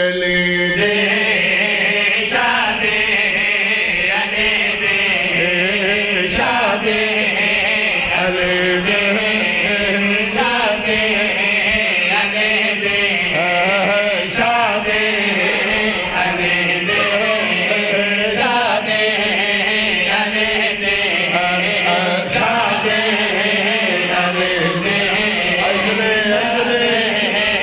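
Men chanting together through microphones: a lead voice with backing singers over a steady held drone note.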